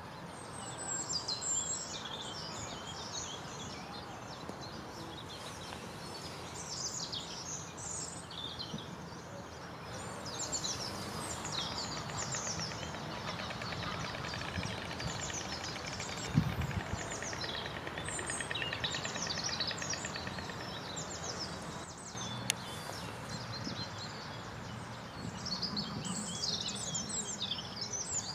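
Songbirds chirping and singing, many short high calls and trills, over steady outdoor background noise. A single low thump a little past halfway is the loudest moment.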